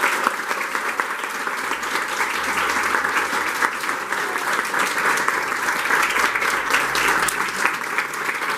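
Audience applauding steadily, a dense patter of many people clapping at the end of a performance.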